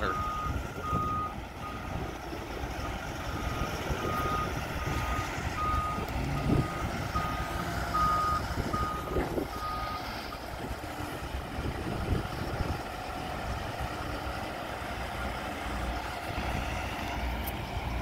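A telehandler's reversing alarm beeping repeatedly and stopping about ten seconds in, over the steady low running of its diesel engine.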